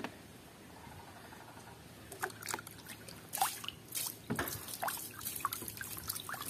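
Water splashing and dripping as a plastic toy is swished around in a basin of water by hand. It starts about two seconds in, as a run of small splashes and drips.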